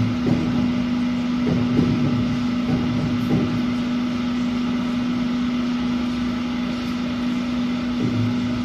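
Vertical glass washing machine running with a steady mechanical hum.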